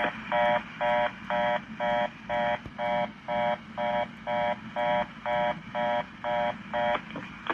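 Telephone fast busy (reorder) tone over a phone line: about fifteen short identical beeps, a little over two a second, signalling that the call cannot go through.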